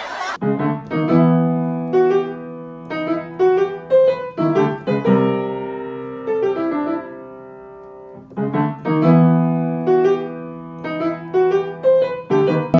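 Piano playing a short melody over chords, the phrase starting over about eight seconds in.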